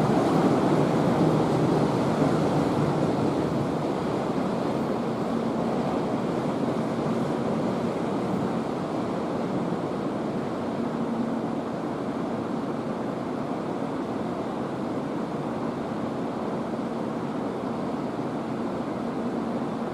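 Electric trains moving through a station: a steady rolling rumble that is loudest at first and eases off slowly, with a faint hum now and then.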